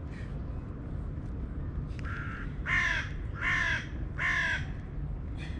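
A crow cawing three times in a row, harsh calls a little under a second apart, after a fainter call just before them.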